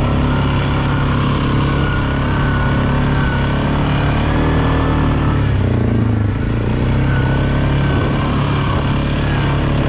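ATV engine running steadily while riding on a trail. The revs ease off briefly about halfway through, then pick up again.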